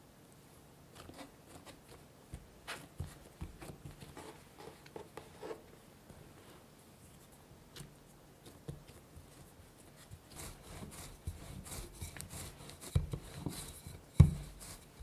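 Sheet of pie dough being folded in thirds and patted down on a bamboo cutting board: soft flaps, rubs and light taps, growing busier in the last few seconds. A single louder thump near the end as the wooden rolling pin comes down.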